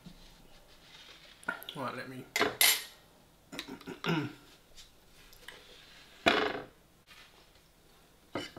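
Metal slotted spatula scraping and clinking against a glass baking dish and a ceramic plate while fisherman's pie is dished up: several separate scrapes and knocks, the loudest about two and a half seconds in and again about six seconds in.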